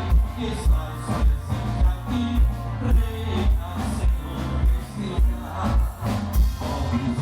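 Live band music with a steady beat, the bass drum striking about twice a second.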